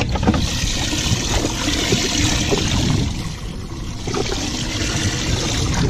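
Water running and splashing into a boat's open live well: a steady rush of trickling water that starts about half a second in.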